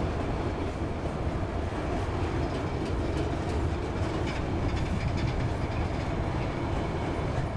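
Freight train tank wagons rolling past on steel wheels: a steady rumble of wheels on the rails, with scattered clicks.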